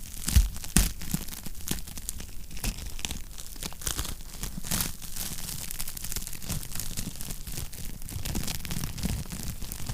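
Fireplace fire crackling: a steady patter of small pops and snaps over a low rumble, with two sharper, louder snaps in the first second and another just before the halfway mark.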